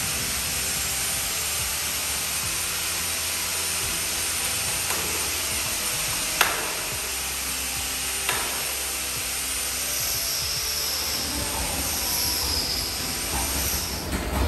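Stainless-steel door of a drum-cleaning cabinet shut with a sharp metallic bang about six seconds in, then a smaller click of its latch handle about two seconds later, over a steady hiss of running equipment.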